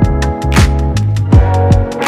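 Background music: an electronic beat with deep kick drums that drop in pitch, steady hi-hat ticks over sustained chords, and a snare hit about every second and a half.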